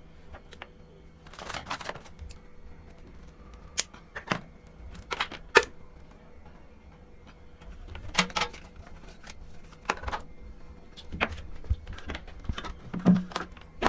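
Cables and plugs being unplugged and handled: irregular clicks, knocks and short rustles, with the sharpest clicks about five and a half seconds in and near the end.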